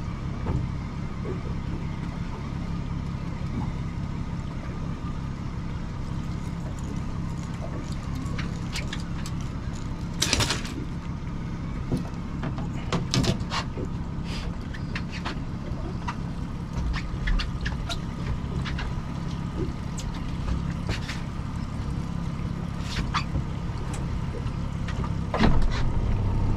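Honda outboard motor running steadily at trolling speed, a constant low hum. Scattered clicks and knocks of gear being handled on the boat sound over it, the loudest about ten seconds in and near the end.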